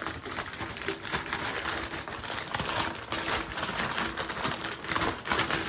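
Plastic mailer bag rustling and crinkling as it is pulled and torn open by hand, a dense run of irregular scratchy rustles.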